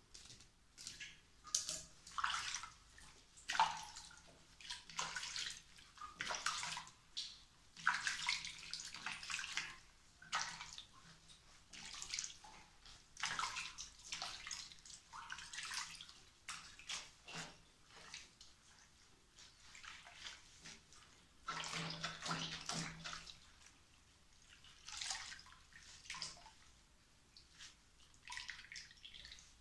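Soapy water sloshing and splashing in a sink basin in irregular bursts as a wet curly wig is squeezed and wrung out by hand.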